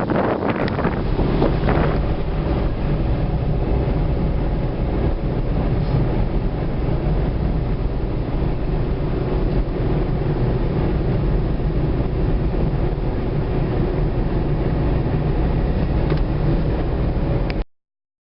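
Steady engine drone with wind buffeting the microphone, cutting off abruptly near the end.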